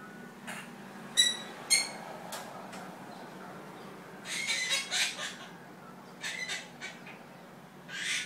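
Quaker (monk) parakeet calling: two short, sharp whistled chirps about a second in, then bursts of scratchy, speech-like chattering babble.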